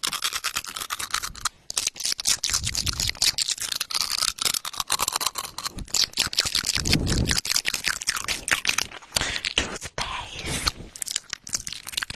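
Long acrylic fingernails rubbed and scraped rapidly against teeth close up to the microphone, an ASMR imitation of toothbrushing: a fast, irregular run of scratchy clicks.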